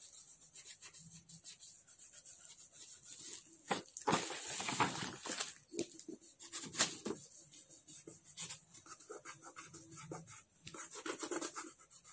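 Fingertips rubbing crayon colour on a sheet of drawing paper in short repeated strokes, blending the shades together. About four to five and a half seconds in there is a louder stretch of rubbing and paper rustling as the sheet is moved around.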